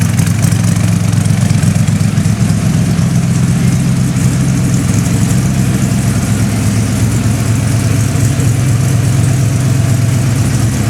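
Small-block V8 of a Factory Five Cobra Daytona coupe replica, fed by two four-barrel carburetors and breathing through side exhaust, idling steadily and loudly.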